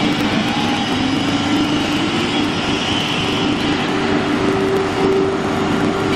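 Wood CNC router running: steady machine noise with a few tones that shift in pitch, one gliding upward about a second in.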